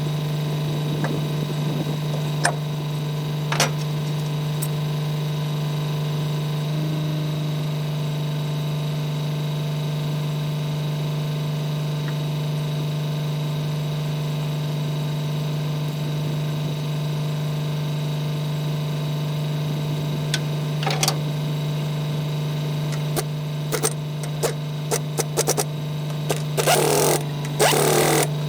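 A steady machine hum, like an engine or motor running, with a few sharp clicks early on. In the last few seconds come a cluster of knocks and short, louder bursts, like tools being handled.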